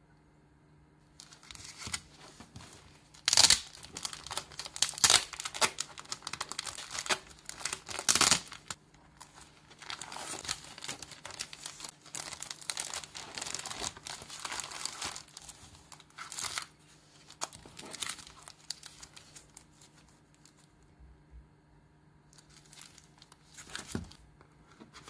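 Clear plastic cellophane wrapping crinkling and tearing as a pack of mini loose-leaf paper is unwrapped by hand. It comes in irregular bursts, with a few sharp, louder rips in the first third, then a lull and one last brief crinkle near the end.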